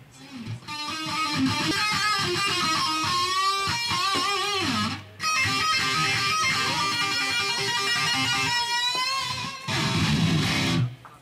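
Electric guitar played through an amplifier: a distorted lead line with string bends and wide vibrato, breaking off briefly about halfway through.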